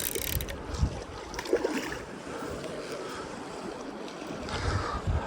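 River water flowing, with wind buffeting the microphone in low rumbles.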